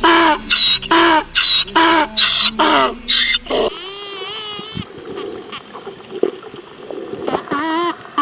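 Animal calls: a run of about seven short, loud calls about half a second apart, each falling in pitch. After an abrupt change of clip come quieter calls that waver up and down in pitch.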